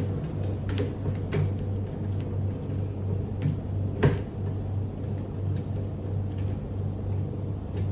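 Light metal clicks and knocks from a bending bar being fitted onto a golf club loft and lie machine, with one sharper clack about four seconds in, over a steady low hum.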